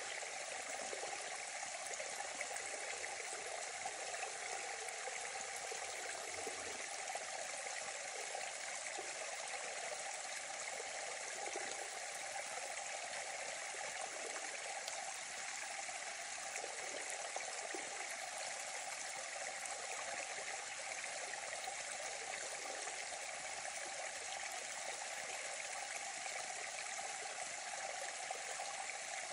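Small woodland stream running fast and muddy down a narrow gully, a steady rushing and splashing of water over small steps in its bed.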